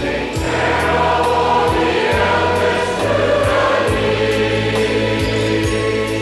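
A choir singing a hymn-like song, over a steady low hum.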